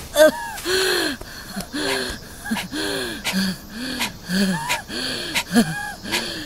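Heavy, out-of-breath panting from a cartoon character, a rapid run of gasping breaths with voice in them, about two a second.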